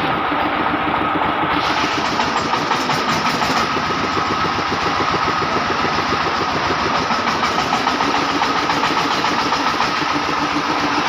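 Engine of a corn sheller running steadily with a fast, even pulse, the shelling just finished.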